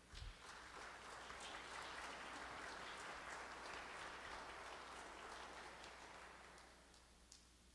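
Congregation applauding, starting abruptly and tapering off about a second before the end.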